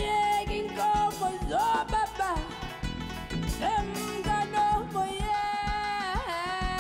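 A woman singing a melodic line with held, bending notes over a live band, with drums keeping a steady beat under guitar chords.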